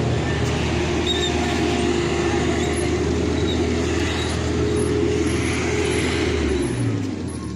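Road roller's diesel engine running hard at steady high revs, then easing back near the end as the revs and level drop.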